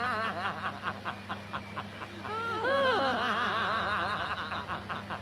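Laughter: a rapid run of pitched "ha-ha" pulses, about five a second, with a higher, longer laugh a little past two seconds in.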